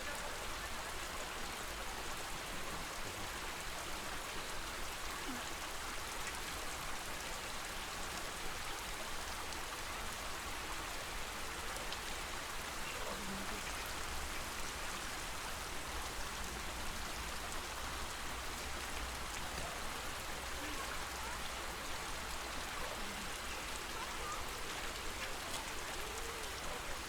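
Lake ambience with flamingos swimming: a steady, even wash of water noise. A few faint short sounds are scattered through it.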